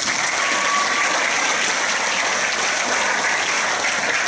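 Crowd applauding: many people clapping in a dense, steady round.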